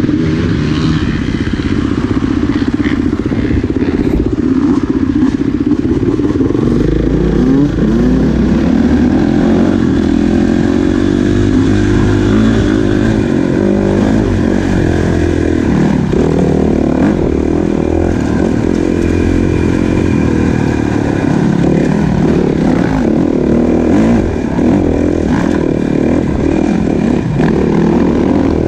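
450 dirt bike engine being ridden, its revs rising and falling with the throttle.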